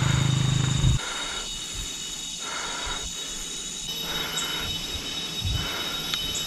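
Cicada chorus: several insects sing steady, high-pitched whines at once, while another call pulses on and off every second or so. A loud low hum cuts off suddenly about a second in.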